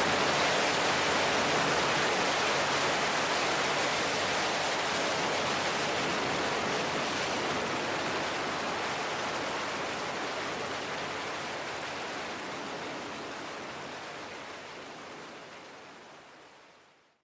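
Steady rushing wind noise from airflow over a camera mounted on the wing of a light aircraft in flight, with no distinct engine note standing out. It fades out gradually over the last few seconds.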